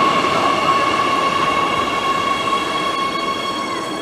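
Oslo Metro MX3000 train running alongside an underground station platform: a steady high whine of several tones over rumbling running noise, slowly getting quieter.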